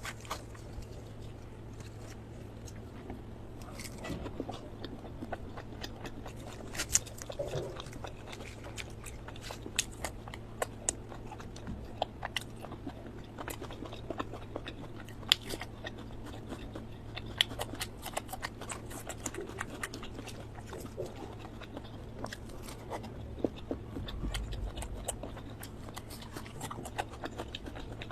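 Close-miked eating: chewing with wet mouth smacks and sharp, irregular clicks as chicken liver, gizzard curry and luchi are bitten and chewed.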